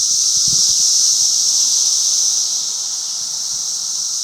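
Chorus of Brood X periodical cicadas: a loud, steady, high hissing drone, the 'shh' sound of the American 17-year cicadas, easing slightly past the middle and building again near the end.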